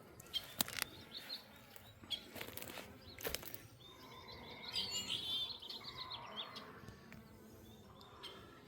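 Wild birds chirping and warbling in short phrases, with a few sharp clicks and rustles in the first few seconds.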